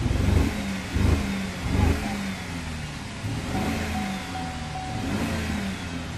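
Chevy Impala engine being revved with the car parked: three quick throttle blips in the first two seconds, then held at a raised speed with the pitch gently rising and falling. The engine is low on compression and has had oil added to bring the compression up.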